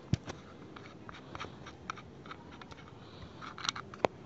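Scattered light clicks and knocks of handling, with a sharp click just after the start and a cluster of clicks ending in a sharper knock near the end.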